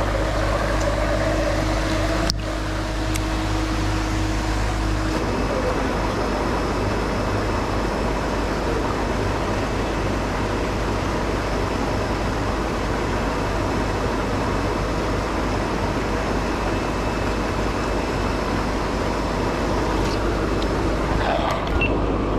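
Steady churning and splashing of pond water from a paddlewheel aerator, with the low hum of its running motor. A sharp click about two seconds in.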